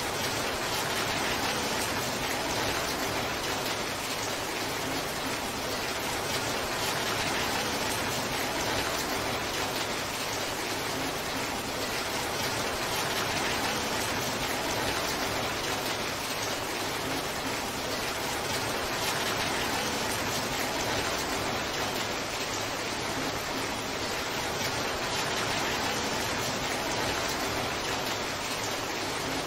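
Torrential downpour: heavy rain falling in a steady, even hiss.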